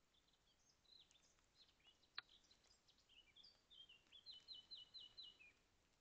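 Faint song of a small songbird: a run of varied quick chirps, then five quick repeated notes and a falling end note. A single sharp tap sounds about two seconds in.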